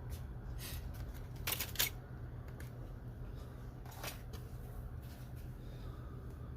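A few brief rustles and clicks of tools and their packaging being handled, loudest about a second and a half in, over a steady low hum.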